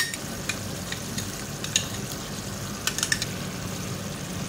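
Chicken pieces frying in oily tomato gravy in an aluminium karahi, sizzling steadily, with a few sharp clicks and pops from stirring as yogurt goes into the pan.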